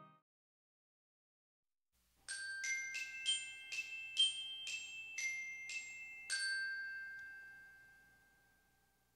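A short, bell-like jingle on mallet percussion: about nine struck notes roughly half a second apart. The last note rings on and fades away over a couple of seconds.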